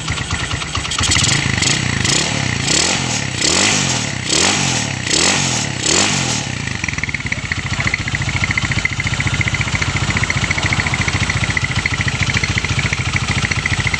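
Odong-odong engine blipped through a quick series of throttle revs, each rising and falling, then settling to a steady idle about six seconds in.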